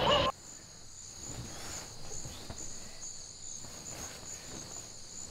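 Crickets chirping steadily in a high, pulsing trill. It opens with a louder noisy sound that cuts off abruptly a fraction of a second in.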